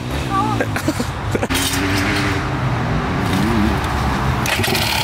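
Motocross bike engines running steadily at low revs, with a brief voice near the start.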